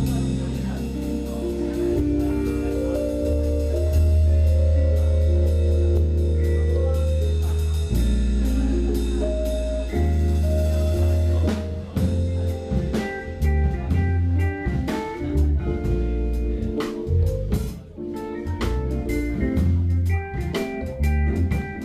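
A live fusion jazz band playing: electric bass, semi-hollow electric guitar, keyboard and drum kit. Long held bass notes and chords give way about halfway through to short, choppy chords over busier drumming.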